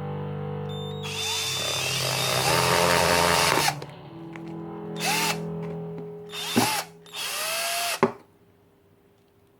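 18V cordless hammer drill motor run in trigger bursts: one long run of about three seconds, then three shorter bursts. Its whine rises as it spins up and falls as it winds down each time. Background music plays underneath and stops at about eight seconds.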